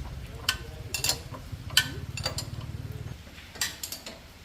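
Metal tools and parts clinking and tapping, several separate sharp clinks, over a low hum that stops about three seconds in.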